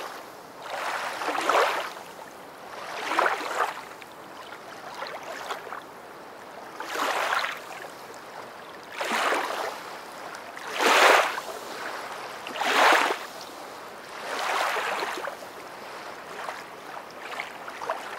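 Ocean waves washing in, the surf noise swelling and falling back about every two seconds.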